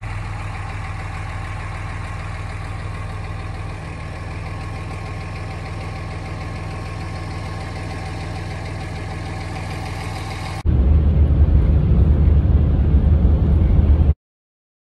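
Car running along the road, heard from inside the cabin: a steady hum, then about ten and a half seconds in a sudden change to a louder, deeper rumble, which cuts off near the end.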